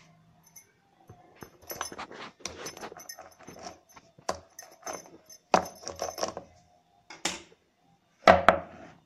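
Plastic rolling pin rolled back and forth over plastic fondant cutters pressed into rolled fondant: a run of irregular knocks and rubbing, with a louder knock near the end.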